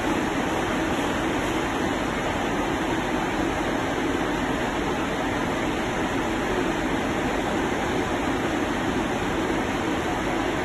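Blower fan of an inflatable tube man running, a steady rush of air.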